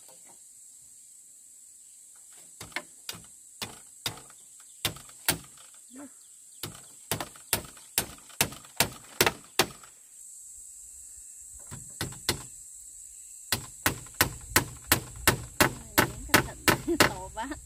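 Runs of sharp blows from a hand tool striking wood, about two to three a second, with a short pause about two-thirds of the way through.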